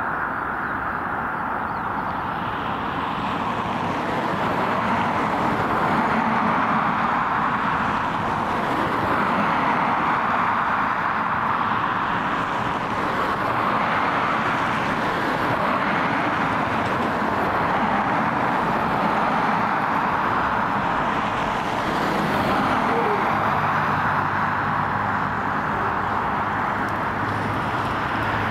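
Boeing 777-300ER's GE90-115B turbofan engines running at taxi power: a steady jet roar. A low steady hum joins in near the end.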